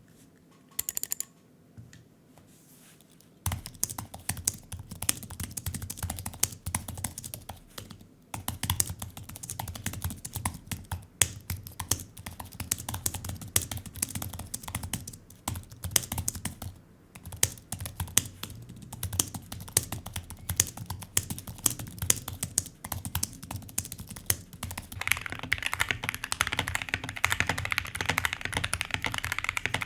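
Typing on an Apple Magic Keyboard, a fast run of light key clicks that begins about three seconds in. About 25 seconds in it changes to typing on a modded budget mechanical keyboard, a denser and brighter clatter.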